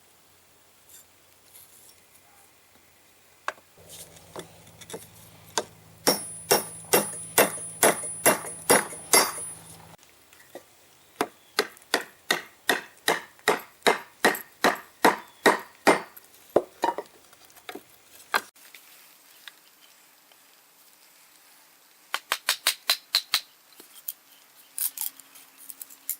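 Hammer blows driving a small forged metal wedge to fix a wooden handle onto a froe: several runs of quick, sharp strikes, about two to three a second, with short pauses between the runs.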